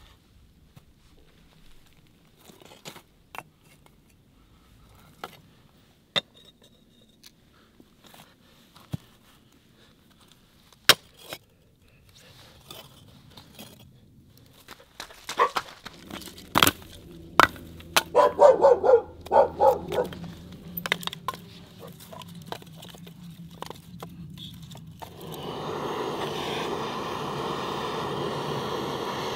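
Kitchen preparation sounds: scattered clicks and knocks of cookware and utensils, with a quick run of short pitched squeaks about two-thirds of the way in. A steady rushing noise starts a few seconds before the end and is the loudest sound.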